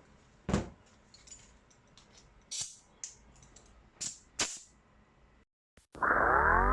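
A handful of short, separate clicks and rattles, then loud music starts about six seconds in with a rising sweep.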